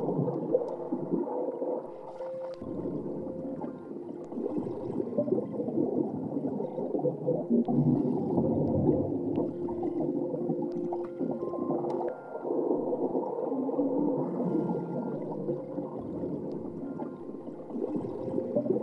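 Electronic sound-design soundscape of underwater-like gurgling textures and whale-like calls, a dense low wash with a few long held tones.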